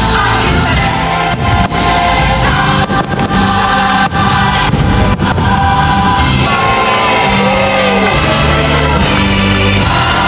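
Christmas fireworks-show soundtrack: loud music with a choir singing.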